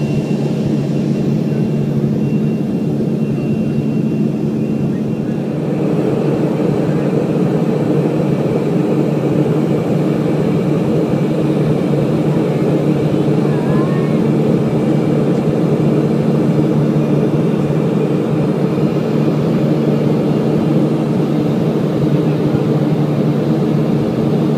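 Cabin noise of a Boeing 737-500 in flight: the steady drone of its CFM56 turbofan engines and the rush of air, with a low hum under it. It gets slightly louder and fuller about six seconds in.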